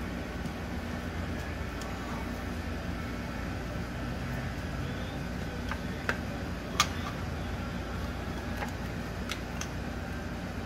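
Light clicks and taps of a fuel rail and fuel injectors being handled and pushed back into place, the sharpest about seven seconds in, over a steady low hum.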